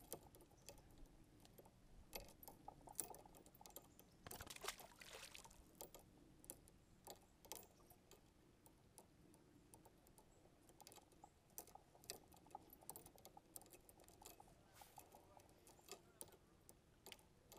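Faint scattered clicks and knocks of tackle being handled aboard a kayak, with a brief splash about four seconds in as a largemouth bass is let back into the water.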